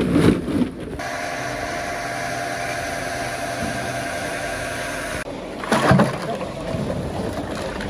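Hard plastic scrap rattling and clattering as it is handled. Then a steady mechanical drone with a whine runs for about four seconds and stops abruptly. About six seconds in there is a loud clatter of plastic pieces.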